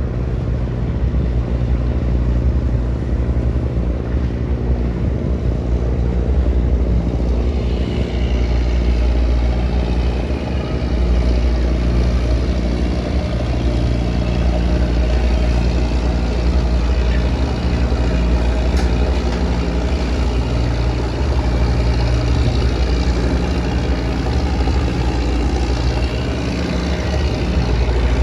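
Trawler's diesel engine running steadily, a low hum with a constant beat. About eight seconds in, a higher rushing sound joins it.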